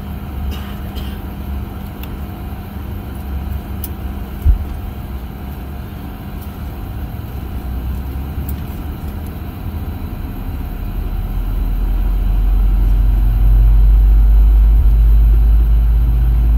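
Cabin noise of a Boeing 737-800 with its CFM56-7B engines running as it moves off from the gate: a steady low rumble with a faint hum over it, growing louder from about eleven seconds in. A single sharp thump sounds about four and a half seconds in.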